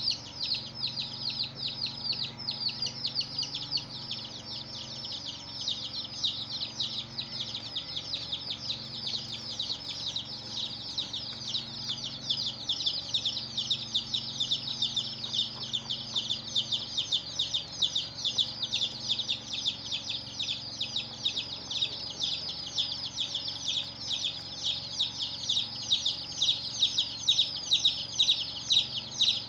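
A brood of baby chicks peeping continuously: a dense chorus of short, high chirps overlapping many times a second, growing louder in the last few seconds.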